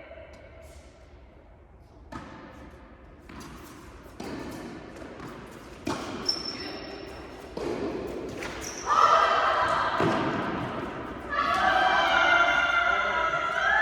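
Tennis balls being struck and bouncing in an indoor hall, a sharp hit every second or two with a slight echo. From about nine seconds in, loud music with singing comes in over them and becomes the loudest sound.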